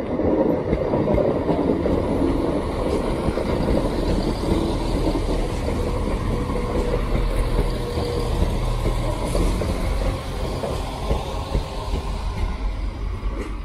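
ScotRail class 170 Turbostar diesel multiple unit arriving close by: a steady rumble of its underfloor diesel engines and wheels on the rails, easing off after about ten seconds as the train passes. A thin steady whine comes in briefly about halfway through.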